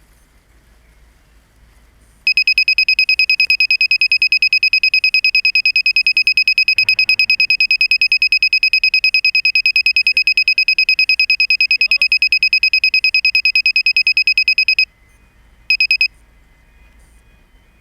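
Piezo lost-model buzzer on a crashed FPV racing quadcopter, sounding a rapid run of shrill high beeps, several a second. The buzzer starts about two seconds in, cuts off near the end, then gives one short burst more.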